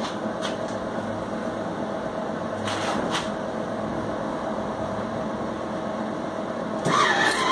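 Welding machine humming steadily with its cooling fan running, with a couple of brief clicks about three seconds in and a short louder sound near the end.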